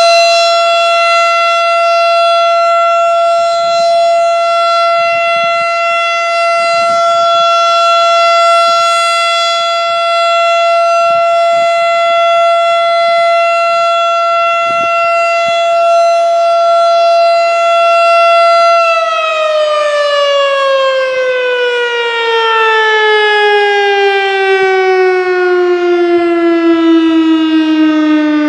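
Federal Signal STH-10 electromechanical tornado siren sounding a steady Alert tone with a rich, many-overtoned sound. About nineteen seconds in, the power cuts and it winds down, its pitch falling steadily through the end.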